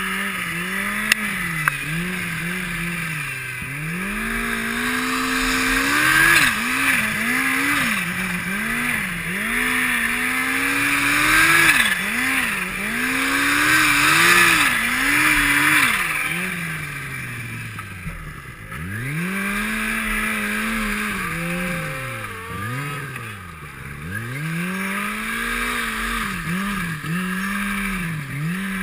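Turbocharged snowmobile engine revving up and down as the throttle is worked through deep powder. Its pitch keeps rising and falling every second or two over a steady hiss of track and snow. Two sharp clicks come a second or two in.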